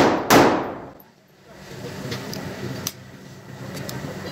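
Two quick shots from a locally made pistol being test-fired, about a third of a second apart, ringing off the brick walls and dying away within a second. A few faint clicks follow.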